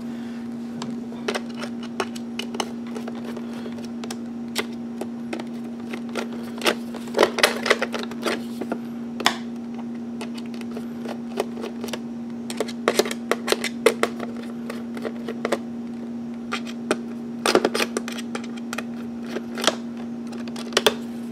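Scattered clicks and knocks of hard plastic parts and tools as a car jump starter's housing is worked apart, bunched in several short flurries, over a steady low hum.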